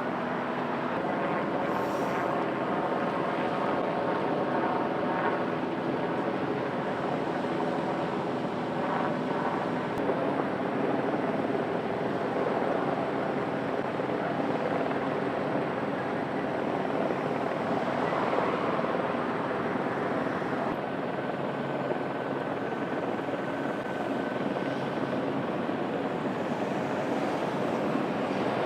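Light single-turbine helicopter running steadily, its rotor and turbine making a continuous drone that keeps a constant level throughout; a faint thin tone holds for a few seconds past the middle.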